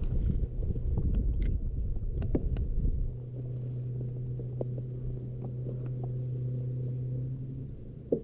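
A boat motor running with a steady low hum. Its rumble drops away about three seconds in, leaving the even hum, and a few light clicks of handling gear sound over it.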